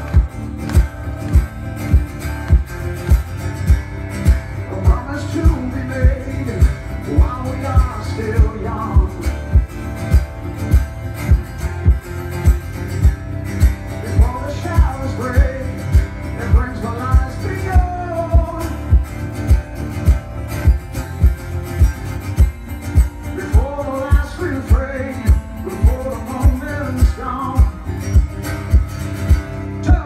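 Live male rock vocalist singing a ballad to his own strummed acoustic guitar. The voice comes and goes between phrases over a low thump that keeps a steady beat a little faster than once a second.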